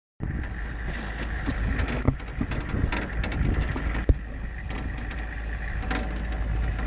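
Steady low rumble of a vehicle on the move, with many short clicks and rattling knocks over it; the sharpest knock comes about four seconds in.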